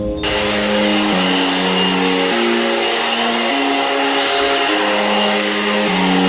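One-step hot air brush (hair dryer brush) blowing, a steady rush of air from its fan that starts abruptly about a quarter second in. Background music plays underneath.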